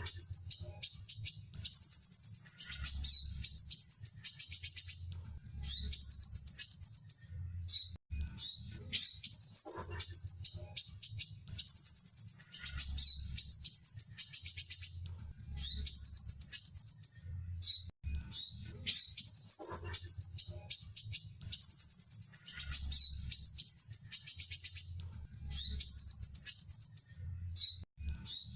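Sunbird song: high, rapid trilled phrases a second or two long, repeated over and over with short pauses, over a faint low hum.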